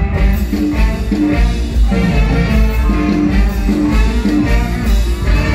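Live mor lam band music: a heavy bass beat under a short repeating melodic figure.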